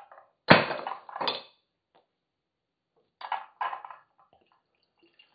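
A carbonated bottle of homemade kombucha popped open under a towel about half a second in: a sharp pop and a short rush of escaping fizz. From about three seconds in the bottle is handled and the kombucha is poured through a metal strainer into a glass, with light clinks.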